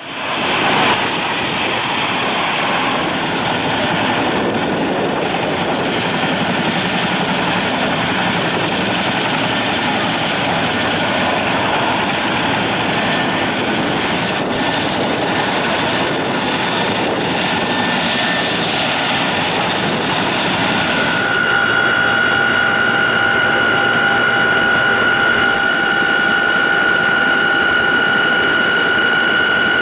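CH-47J Chinook helicopter's twin turboshaft engines and rotors running, a loud steady rush. About two-thirds of the way through the sound changes abruptly to the cabin interior, where a steady high whine rides over the rush as the helicopter begins to taxi.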